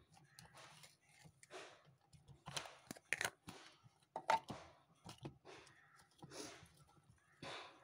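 Pink slime squelching as fingers poke and press into it, in irregular squishes with sharp little pops and clicks. The loudest come about three to four and a half seconds in.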